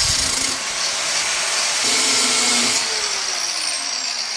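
Cordless angle grinder with a cut-off wheel, cutting through a rusted steel nut on an exhaust downpipe stud. It makes a steady, loud grinding noise, and its pitch falls over the last second or so as the wheel slows.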